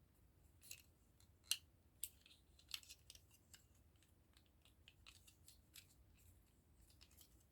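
Faint, scattered sharp clicks and snips of small plastic model-kit parts being cut and handled, the loudest about a second and a half in.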